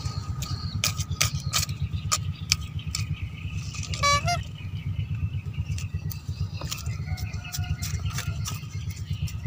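A short blade digging into sandy soil, giving a string of sharp clicks and scrapes, over a steady low rumble. About four seconds in there is a brief pitched beeping tone, like a horn.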